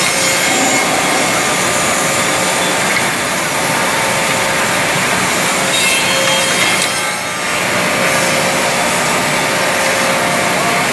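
Woodmaster WM-200B double-end CNC tenoning machine running, its two spindle cutter heads milling tenons on the ends of a wooden workpiece: a loud, steady cutting noise with a brief dip about seven seconds in.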